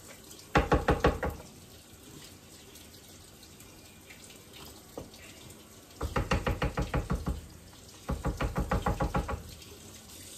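Dishes being washed at a kitchen sink: three bouts of quick scrubbing strokes, about nine a second, over a faint steady wash of running water.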